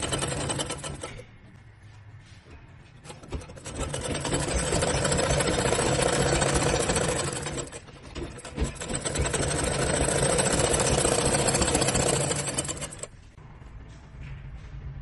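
Upholstery sewing machine stitching in two long runs of about four seconds each, with a short stop between them.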